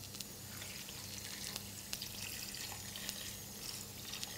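Beef stock poured from a glass jug into a stainless steel pot over seared meat and roasted vegetables, a faint splashing pour.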